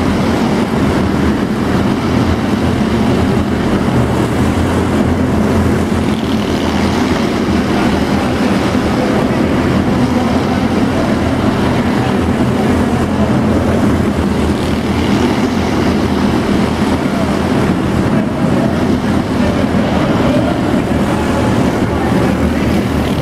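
A pack of small arena race cars running laps at race pace, their engines making a loud, continuous drone that swells and fades as cars pass.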